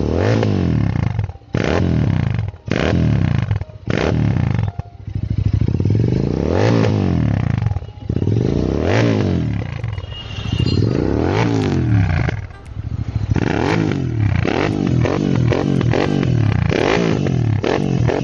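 Royal Enfield Interceptor 650's parallel-twin engine revved repeatedly through AEW TE102 slip-on silencers with the dB killers removed. It opens with a few short throttle blips, then three longer revs that rise and fall, then a run of quick blips near the end.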